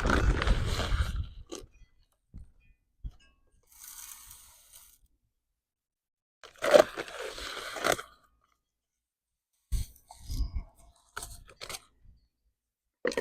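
Birdseed being poured and scooped into a small bird feeder: a few rustling, rattling pours, then short knocks and clicks as the feeder is handled.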